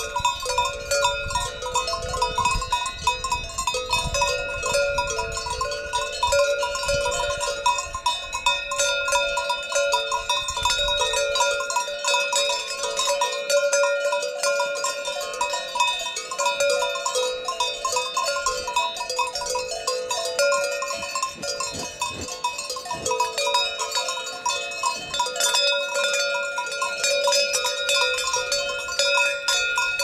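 Cowbells on cows clanking and ringing continuously, several bell tones overlapping.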